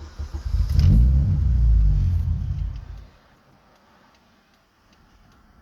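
A 2007 Chevy Cobalt SS engine cranking for about three seconds, a low rumble that then stops without the engine staying running. This is the sign of a no-start fault, which the owner traces to a failed mass airflow sensor whose reading does not change.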